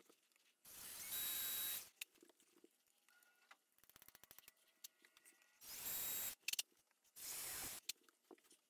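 Small electric drill with a 1/16-inch bit drilling pilot holes into a subwoofer cabinet's front baffle: three short runs, the first about a second in, the other two close together near the end.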